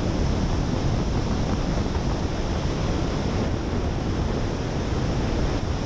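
Robinson R44 helicopter in flight: a steady rush of wind over the microphone, with low rotor and engine noise under it.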